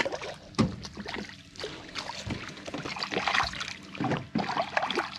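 Water splashing and slapping beside a boat as a hooked speckled trout thrashes at the surface while it is landed by hand, in a string of irregular splashes.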